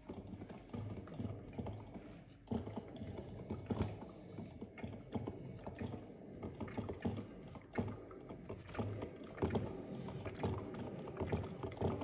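Melitta Optima Timer drip filter coffee maker brewing: irregular gurgling and popping as its heater pushes boiling water up to the filter, over a low hum. It grows louder about two and a half seconds in.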